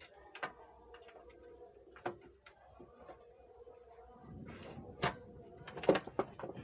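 Crickets chirping steadily in the background, with scattered clicks and knocks as a circuit board is fitted back into the power amplifier. The loudest are two knocks about five and six seconds in, amid some rustling handling noise.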